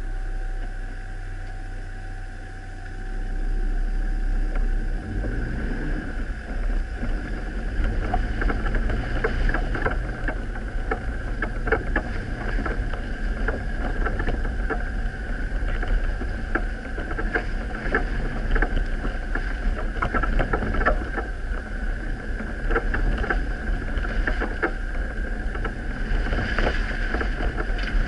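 Off-road vehicle's engine running as it drives along a rough, muddy track, picking up speed about four seconds in. From about eight seconds on, frequent knocks and rattles come from the vehicle jolting over ruts and bumps.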